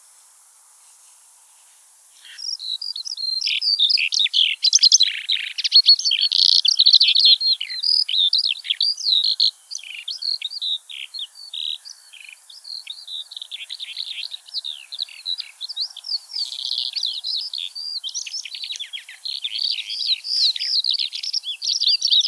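Eurasian skylark singing: a long, unbroken outpouring of rapid, varied high chirps and trills, starting about two seconds in after a faint hiss.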